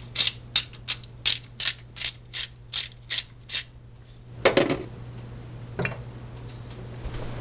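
Hand-twisted pepper grinder cracking black peppercorns, giving a ratcheting run of sharp clicks about three a second. The clicks stop just before four seconds in, followed by a single louder knock and a fainter one.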